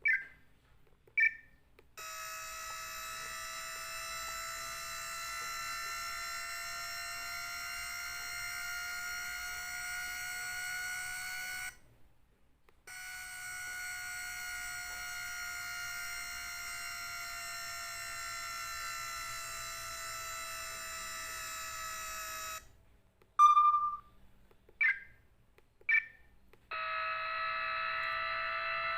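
Samsung SCH-F309 cell phone's speaker playing built-in sounds from its test mode: two short high beeps, then a long buzzy electronic tone for about ten seconds that slowly rises in pitch, a second one that slowly falls, a few more short beeps, and another long tone beginning near the end.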